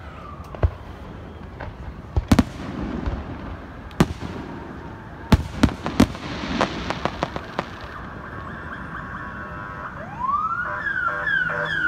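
Aerial fireworks bursting: a string of sharp bangs over the first eight seconds, with crackling around the middle. Near the end a wailing whistle starts, rising and then sliding down in pitch again and again.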